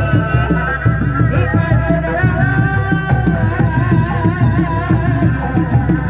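Sundanese reak folk music for a kuda lumping performance: loud, steady drumming under a wavering, ornamented high melody line.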